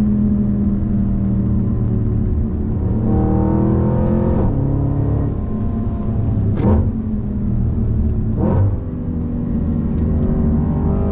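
Audi RS5 B8's V8 through an Akrapovic exhaust, running steadily and then accelerating hard from about three seconds in, the engine note climbing through the gears. Two sharp cracks come at gear changes, about six and a half and eight and a half seconds in.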